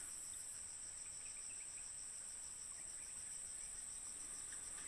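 Steady, high-pitched insect chorus with a fast, even pulse.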